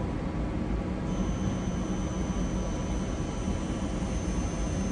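Airbus A330 cockpit printer running as it prints a report: a thin, steady high whine starts about a second in, over the steady hiss of cockpit ventilation and avionics cooling fans.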